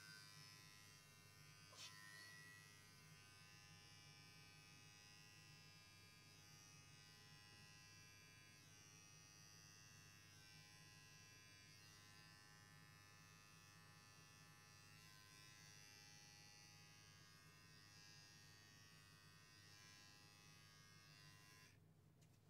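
Faint, steady buzz of electric pet hair clippers running while trimming a Persian cat's fur; the buzz cuts off near the end.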